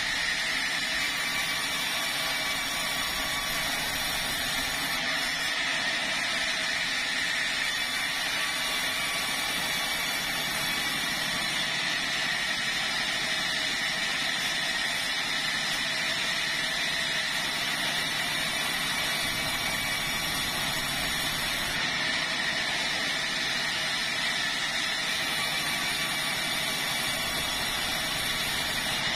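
Sawmill headsaw running steadily: a constant machine noise with a steady high whine.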